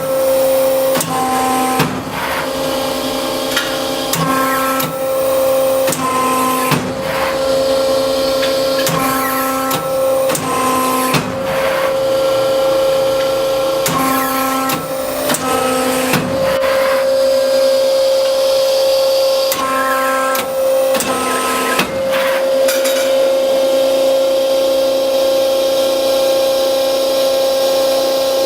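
1997 Premier 25-ton CNC hydraulic press brake running: a steady hydraulic pump hum, with higher tones coming and going and sharp knocks every few seconds as the ram cycles through strokes and the back gauge repositions.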